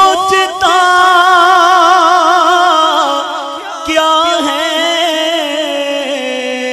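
A male naat reciter singing an Urdu naat: long drawn-out notes with wide vibrato, a new phrase starting about four seconds in, and the pitch sinking toward the end.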